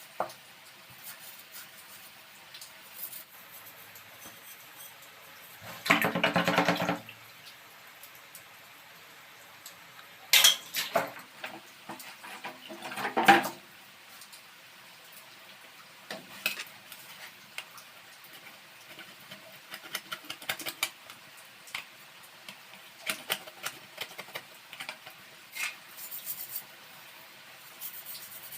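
Metal gas-stove parts being handled: scattered clinks of metal on metal, with a loud scraping clatter lasting about a second some six seconds in and a few sharp knocks around ten and thirteen seconds.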